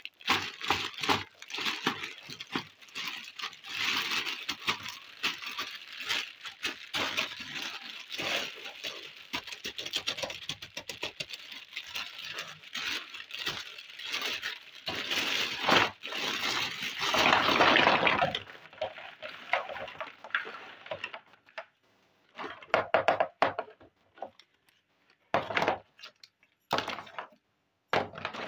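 A clear plastic packaging bag crinkling and rustling as it is handled and opened, loudest in a spell about two-thirds of the way through. After that come scattered short clacks and taps of small plastic toy pots, cups and utensils knocking together as they are picked up and set down.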